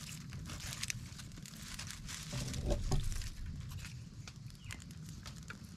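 Small twig fire crackling, with scattered sharp snaps and pops, over a low rumble. About halfway through, a louder low sound with a brief pitched cry rises and fades.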